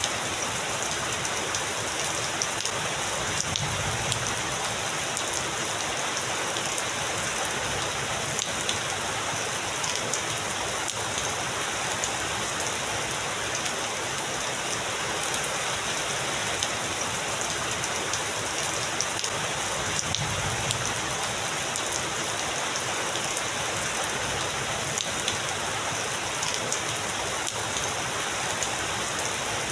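Heavy rain falling steadily, with faint low rumbles of thunder about four seconds in and again about twenty seconds in.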